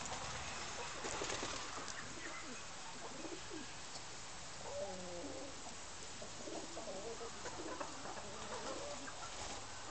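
Birds calling over a steady outdoor background hiss, with a run of short, low, wavering calls in the second half.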